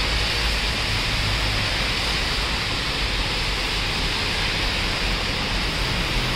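Heavy rain pouring steadily, a dense, even hiss with a low rumble beneath it.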